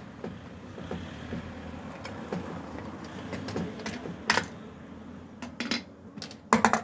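Small clicks and clatter from handling the plastic drum and toner unit of a Brother laser printer with a screwdriver, with a sharper click about four seconds in and a few more clicks near the end.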